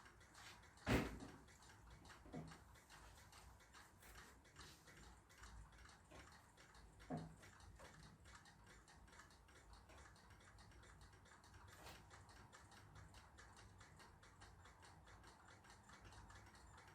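Mostly near silence with a few small clicks and knocks from a screwdriver undoing screws in the back of an LCD TV, the sharpest about a second in and two fainter ones a little later.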